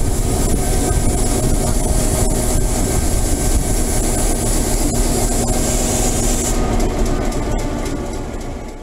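EMD GP7u diesel-electric locomotive's engine running steadily at idle, a low rumble with a steady drone. A high hiss over it stops about two-thirds of the way through, and the sound fades out near the end.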